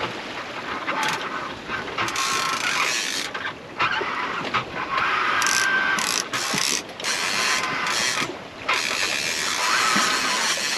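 Fishing reel being cranked to wind in a line that has no fish on it. The whirring of the reel comes in spells that stop and start with short pauses, over the rush of wind and water.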